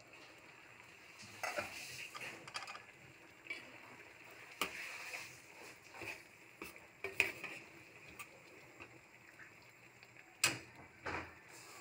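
A stainless steel pan lid is lifted off, then a spoon stirs a pan of simmering mung bean soup, knocking and scraping against the stainless steel pan. There are irregular clinks throughout, with the loudest knocks about seven and ten seconds in.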